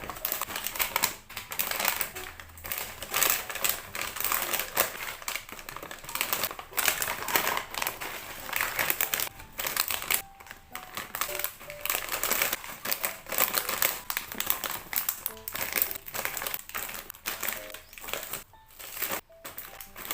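Packaging being handled: irregular crinkling and rustling with scattered taps and clicks.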